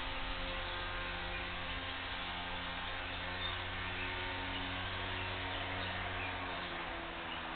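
Steady electrical hum made of several steady tones over faint hiss, its lowest part fading near the end.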